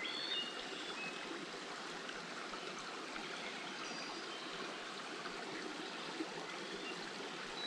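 Small rocky mountain creek flowing, a steady, gentle rush and trickle of water.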